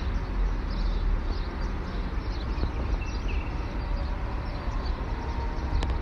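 Faint birds chirping, short high notes repeated about twice a second, over a steady low rumble and hiss of outdoor background noise.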